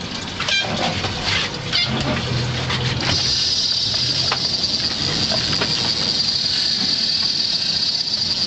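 Fishing reel drag giving line to a hooked tarpon: a few short high-pitched bursts in the first two seconds, then from about three seconds in a steady high whine as the fish runs.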